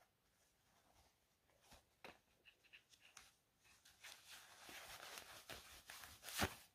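Faint rustling of a cloth drawstring pouch being handled and opened out, with a few soft clicks and one sharp click near the end.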